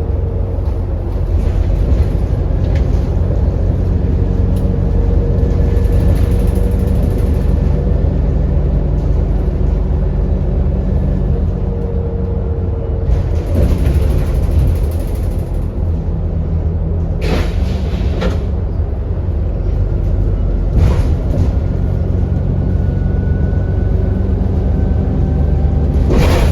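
Interior of an Alexander Dennis Enviro400 double-decker bus on the move: a steady low engine rumble with road noise, several sharp knocks and rattles in the second half, and a faint rising whine near the end.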